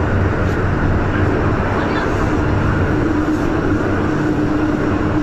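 MTR M-train heard from inside the carriage as it runs through an underground station: a steady rumble of wheels on rail and running gear, with a motor tone held at one pitch.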